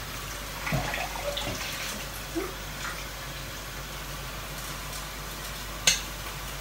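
Steady hiss from a wok of stir-fried vegetables on a lit gas burner. A single sharp clink near the end, as a stainless steel bowl of soaked rice noodles is brought to the wok.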